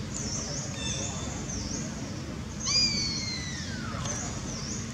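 A baby long-tailed macaque crying: a short squeak about a second in, then a loud, high cry near the middle that slides down in pitch over about a second and a half. Small high chirps repeat in the background.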